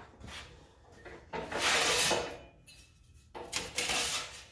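Sheet steel sliding and scraping against the metal bed of a sheet-metal brake as the piece is set in place for bending. There are two scrapes, each about a second long: the first comes about a second and a half in, the second near the end.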